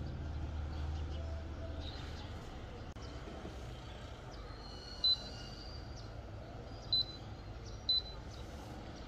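Three short, high-pitched beeps from an induction hob's touch-control buttons as they are pressed to set it: one about halfway through, then two more about a second apart near the end. A low rumble sits under the first couple of seconds.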